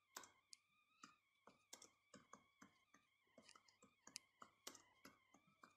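Faint computer keyboard typing: a run of light key clicks at an irregular pace as a short message is typed.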